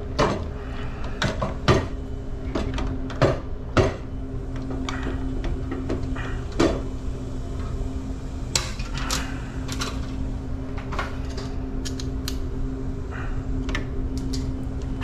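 Sharp metallic clicks and knocks of a screwdriver and a breaker being handled inside a metal electrical panel, scattered irregularly and loudest in the first four seconds. A steady low hum runs underneath.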